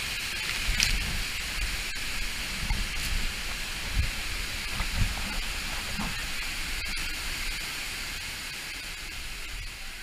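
Gljúfrafoss waterfall pouring close by: a steady rushing hiss of falling water with a low rumble under it and a few low thumps. It slowly fades near the end.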